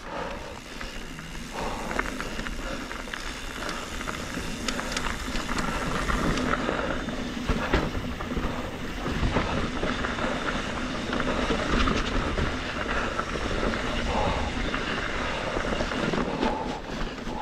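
Trail noise from a 2021 Trek Slash 7 mountain bike on dirt singletrack: tyres rolling over dirt and rock with frequent small clicks and rattles from the bike, under a steady rushing noise.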